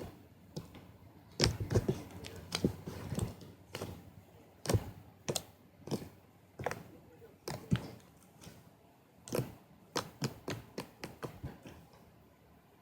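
An irregular series of sharp clicks and light knocks, sometimes a few a second, with short pauses between, thinning out near the end.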